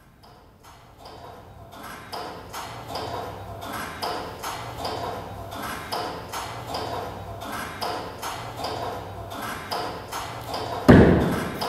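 A rhythmic series of short pinging pulses, about two to three a second, fading in from silence and growing louder. A single heavy thump comes about eleven seconds in.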